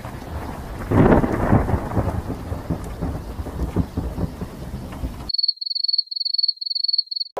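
Thunderstorm sound effect: rain with a loud thunderclap about a second in, rumbling on and cutting off suddenly after about five seconds. Then a high electronic tone beeping about five times in quick succession.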